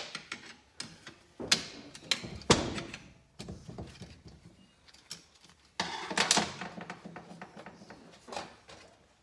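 Hand tools and small metal engine parts being handled and set down on a workbench: a few sharp metallic knocks, the loudest about two and a half seconds in, and a longer scraping rattle about two-thirds of the way through.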